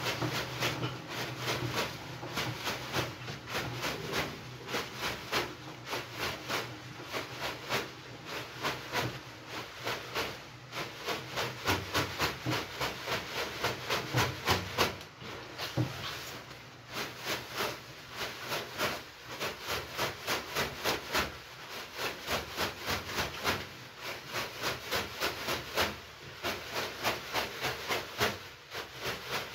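A pair of water-soaked leafy banya brooms (veniki) swishing through the hot air and patting onto a person's body during steaming. The strokes come in a quick, even rhythm of about three a second, in runs with brief pauses.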